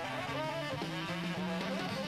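Live jazz: a tenor saxophone plays a line of quick notes with some bent pitches, with the band accompanying.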